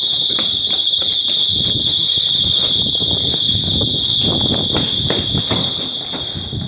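A building's intrusion alarm sounding one steady, loud, high-pitched tone after being tripped. Underneath it are the thumps and knocks of hurried footsteps.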